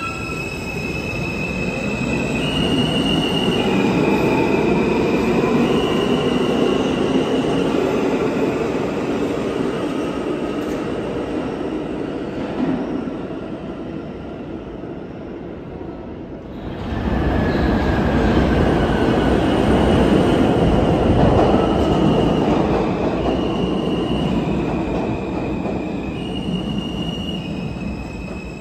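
R160 subway train pulling out of an underground station: low rumble of the wheels with the motors' stepped whining tones, fading away by about 13 seconds. About 17 seconds in a second R160 train comes in close by, with a sudden loud rumble and more stepped motor whines as it slows.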